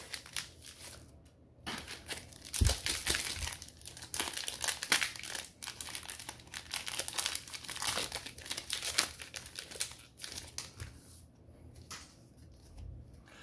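Foil wrapper of a Pokémon Sword and Shield booster pack crinkling and tearing as it is ripped open by hand. The crackling starts about two seconds in and dies down near the end.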